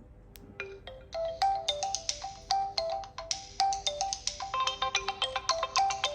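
realme C11 phone ringtone: a melody of short, bright pitched notes that starts about half a second in and grows busier, with more layers joining at about four and a half seconds.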